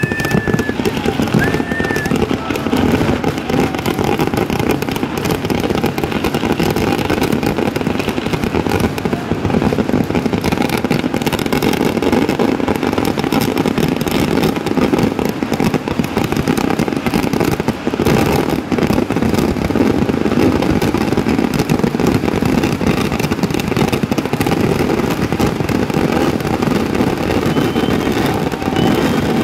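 Kerala temple-festival fireworks (vedikkettu) going off in a dense, unbroken barrage: rapid explosions run together into one continuous crackle and rumble, with a few short whistles in the first two seconds.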